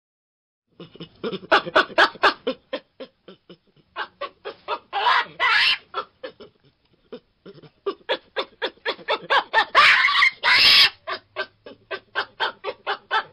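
Yellow baboon calls: rapid runs of short, clipped calls at about five a second, in three bouts. Longer, harsher calls break in about five seconds in and again near ten seconds.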